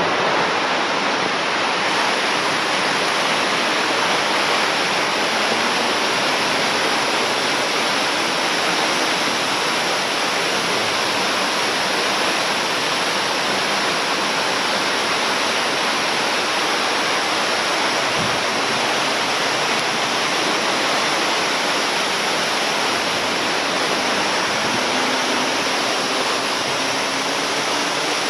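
Snow avalanching off the roof of an indoor arena: a loud, steady rushing noise that keeps on without a break.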